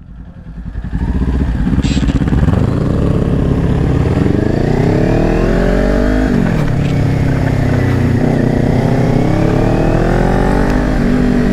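Kawasaki Ninja 400 parallel-twin engine accelerating hard through the gears. It comes back on the throttle about a second in, climbs steadily in pitch, drops sharply at an upshift about six seconds in, then climbs again to a second upshift near the end. Wind noise runs underneath.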